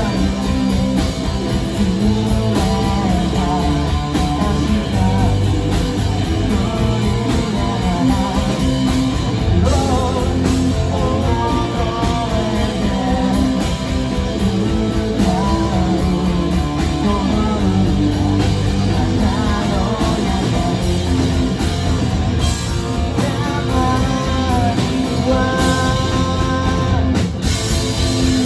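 Live rock band playing: distorted electric guitars and a drum kit with a sung vocal, heard loud from the audience floor of a small club.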